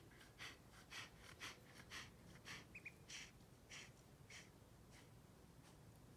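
An old Australian Shepherd breathing close by in short puffs, about two a second, that fade out after about four and a half seconds. A duckling gives two brief high peeps about three seconds in.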